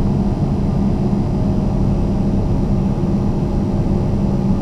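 John Deere 200LC excavator's diesel engine running steadily, a constant low drone heard from inside the operator's cab.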